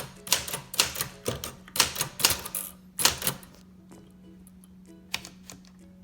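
Keys of a 1958 Remington typewriter being struck, a fast run of sharp clacks for about three and a half seconds, then two more strikes about a second and a half later.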